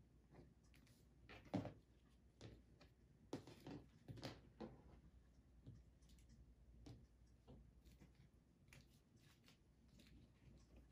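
Quiet handling sounds: soft taps and rustles as small bows are picked up and set down on a cutting mat, the sharpest tap about one and a half seconds in and a few more around the middle.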